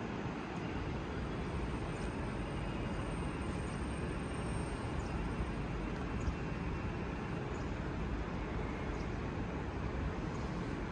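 Steady railway station platform ambience: an even low rumble with hiss over it, and no distinct events.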